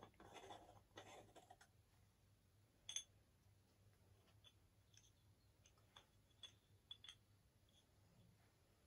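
Faint handling noises close to near silence: a light rustle in the first second or two, a sharper click about three seconds in, then a few small clicks around six to seven seconds.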